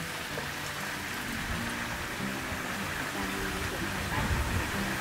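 Duck frying in hot oil, a steady sizzling hiss.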